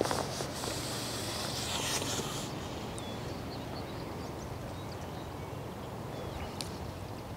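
Outdoor lakeside ambience: a soft rustle for the first two seconds or so, then faint scattered bird chirps over a steady background hiss.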